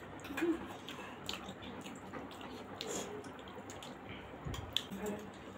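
Wet chewing, smacking and mouth sounds of people eating steamed momos, with scattered short clicks.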